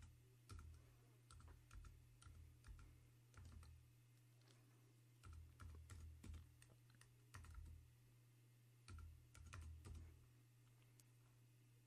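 Computer keyboard being typed on: faint key presses in short irregular runs with pauses between them, over a steady low hum. The typing stops near the end.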